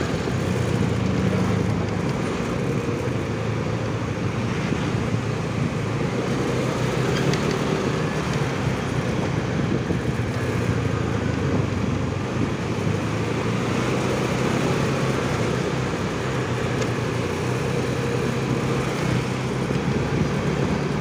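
Motorcycle engine running steadily while riding at low speed in traffic, heard from on the bike, with road and traffic noise around it.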